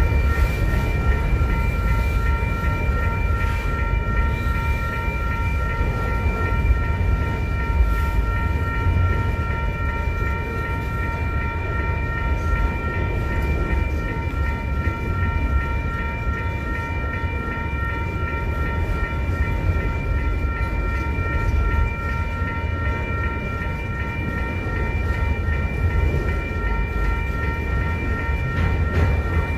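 Freight train of autorack cars rolling through a grade crossing: a steady low rumble of wheels on rail, with the crossing's warning bell ringing throughout as a steady, slightly pulsing high tone.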